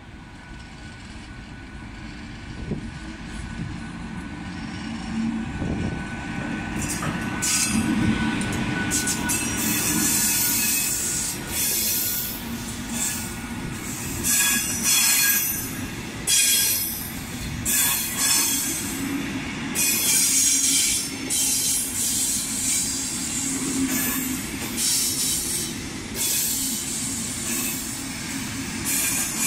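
MÁV V43 electric locomotive and its passenger coaches passing on the track: a low rumble builds as the train approaches. From about seven seconds in, the coaches' wheels squeal in repeated high-pitched bursts as they roll past.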